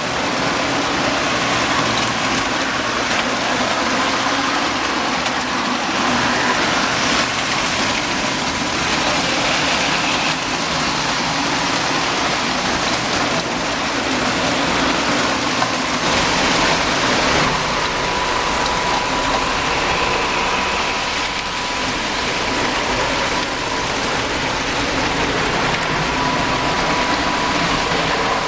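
Lionel postwar O27 toy trains running on three-rail tinplate track: a steady rolling rumble and rattle of wheels, with a faint steady whine that comes and goes in the second half.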